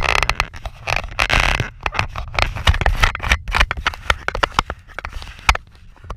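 Irregular clicking, crackling and scraping from the dash-mounted camera and its mount being moved about, over a low rumble of the vehicle on the road.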